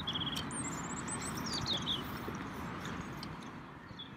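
Floor-standing hand air pump worked in repeated strokes, pumping air into a water bottle rocket on its launcher to build launch pressure of about 40 psi. A bird chirps in the first two seconds.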